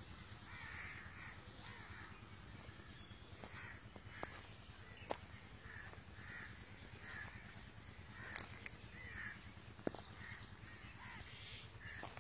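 Faint crows cawing over and over, short rough calls coming every half second to a second, with a few sharp ticks in between.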